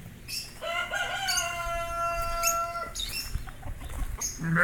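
A rooster crowing: one long, steady crow lasting about two seconds, with small birds chirping around it. Another, lower animal call starts right at the end.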